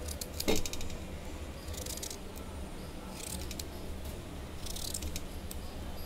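Kitchen knife cutting through a peeled raw (green) mango, a few short crisp scraping cuts about a second and a half apart, with a sharp knock about half a second in.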